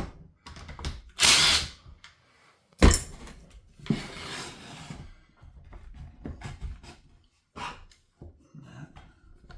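Short bursts of a power driver backing out screws, with a sharp metallic clank about three seconds in.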